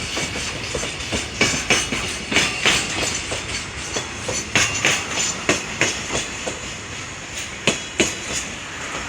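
Freight train hauled by a JR Freight EH500 electric locomotive rolling past, its wagon wheels clicking over the rail joints in irregular pairs and groups over a steady rolling noise, growing a little fainter near the end.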